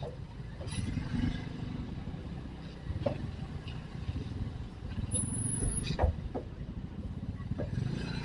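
Motorcycle riding through street traffic: a steady low engine and road rumble with scattered knocks and rattles, and a brief high-pitched whine about five seconds in.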